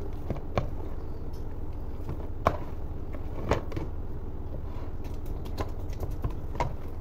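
Hands kneading soft pizza dough inside a clear plastic tub: irregular light knocks and taps as the tub and fingers bump against the plastic, the loudest about two and a half and three and a half seconds in.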